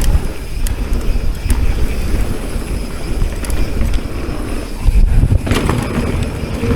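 Mountain bike riding down a dirt trail: wind rushing over the camera microphone and tyres rumbling over the ground, with scattered clicks and rattles from the bike.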